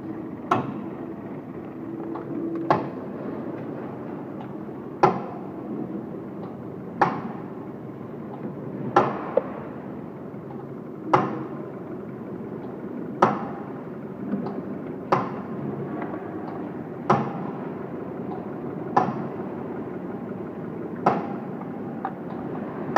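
Sharp knocks, about one every two seconds, over a steady hum.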